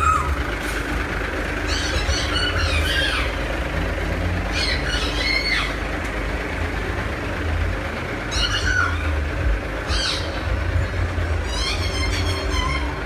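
Large truck's diesel engine idling with a steady low rumble, while short shrill squeals break out every couple of seconds over it.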